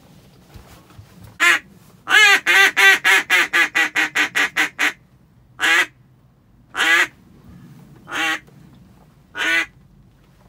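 Duck call blown in a mallard hen's quacking cadence, close and loud: a single quack, then a fast run of about a dozen quacks that get shorter and quicker, then four single quacks about a second apart.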